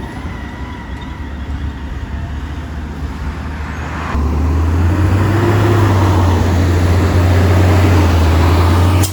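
Garbage truck engine running with a low rumble, which jumps much louder about four seconds in and stays loud.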